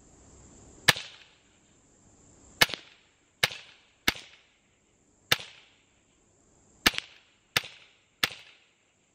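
Hatsan Vectis .22 PCP air rifle firing about eight sharp cracks in quick succession, roughly a second apart or less, emptying its magazine. A steady high insect trill runs underneath.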